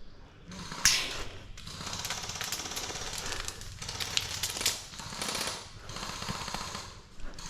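Airsoft gun firing on full auto: a rapid rattling stream of shots in several long bursts, starting about a second in, with short breaks around the middle and near the end.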